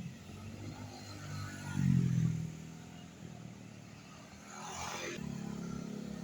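Passing road vehicles: an engine swells and fades about two seconds in, a brief hiss comes about five seconds in, then a steady engine hum.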